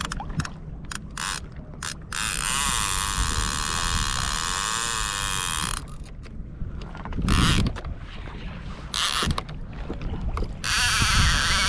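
A fishing reel's drag buzzing as line is pulled off: a few short bursts, then a long run of about four seconds, more short bursts, and another long run starting near the end.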